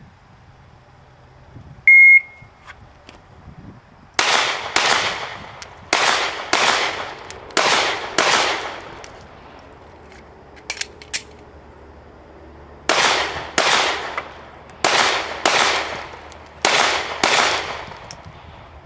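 A short electronic beep from a shot timer, then a Glock 43 9mm pistol fired in three quick pairs. A few light clicks of a magazine reload follow, then three more quick pairs of shots.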